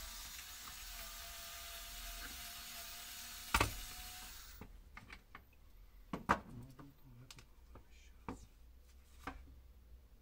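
A small power tool runs for about four and a half seconds with a steady whine and hiss, and a sharp click comes just before it stops. After it stops there are a few light clicks and knocks of tools and parts being handled.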